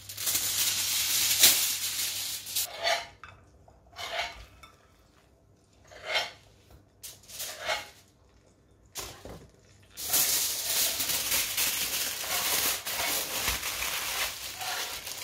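Aluminium foil crinkling as a sheet is handled and smoothed, then a few short scrapes and knocks of a spatula and knife lifting a roast duck breast onto it, then a long stretch of foil crinkling as it is folded around the meat.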